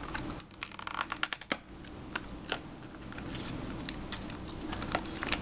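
Light plastic clicks and taps from small doll accessories, beach sunglasses in a plastic case, being handled and unpacked. A quick flurry of clicks in the first second and a half, then scattered single clicks.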